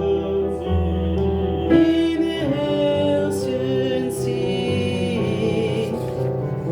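Choir music: voices singing long held notes that change pitch every second or two, with no clear words.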